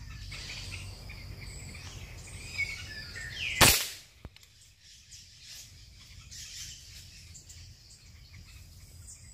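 A single shot from a PCP air rifle, one short, sharp report a little over three and a half seconds in, with small birds chirping on and off around it.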